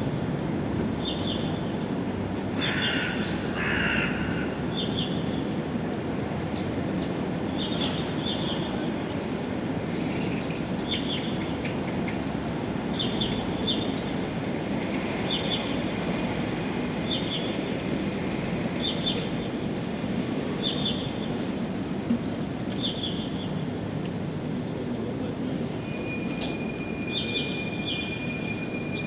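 A songbird repeats short high chirps, mostly in pairs, about every one and a half to two seconds, over a steady low rumble of background noise. A thin steady high tone comes in near the end.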